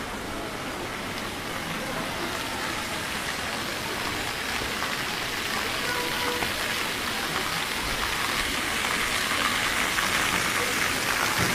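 Fountain water jets splashing into a basin, a steady hiss that grows gradually louder through the second half.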